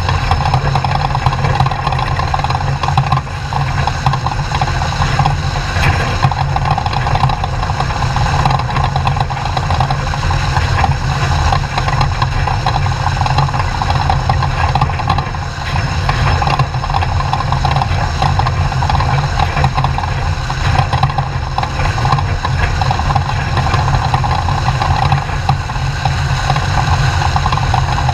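Off-road race truck's engine running steadily: a loud, unbroken drone with no clear rise or fall in pitch.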